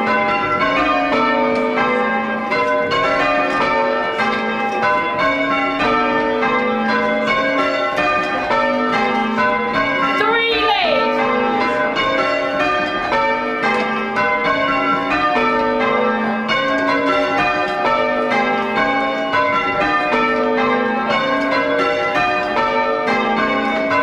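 Church bells rung full-circle in changes, pulled by ringers on ropes, heard from the ringing chamber. Strike follows strike in a steady, even rhythm with no pause.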